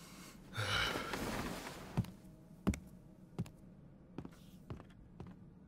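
A man sighs once, long and breathy, then slow, evenly spaced footsteps sound faintly on wooden floorboards.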